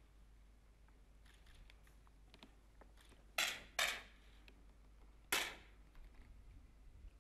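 10 m air pistols firing on a competition line: three sharp shots, two close together about three and a half seconds in and a third about two seconds later, with a few faint clicks before them.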